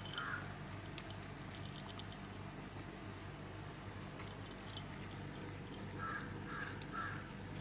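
Short, harsh animal calls, about half a second apart: one at the start and a set of three about six seconds in, over a faint steady low hum.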